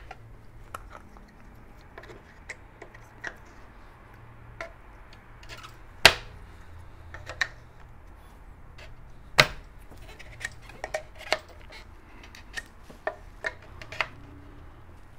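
Scattered clicks and knocks of parts being handled and fitted on a Craftright Folding Bench n' Vice, with two sharper knocks about six and nine seconds in.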